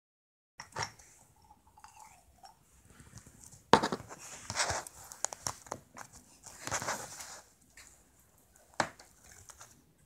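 Pink glitter slime being squeezed and pressed by hand, making wet squishing and crackling pops in irregular bursts, with one sharp crack a little under four seconds in.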